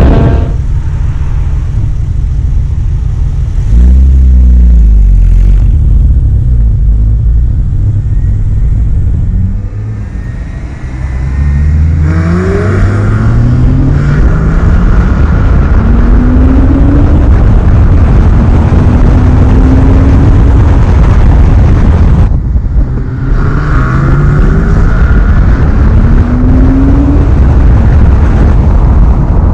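Porsche 997.1 Carrera's 3.6-litre flat-six on its stock OEM exhaust, accelerating away through the gears at ordinary pace: the engine note climbs, drops back at each upshift and climbs again several times. A heavy low wind rumble on the following camera's microphone runs under it.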